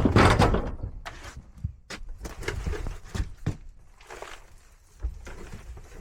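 A loud knock right at the start that fades over about half a second, followed by a run of lighter, irregular knocks and clatters.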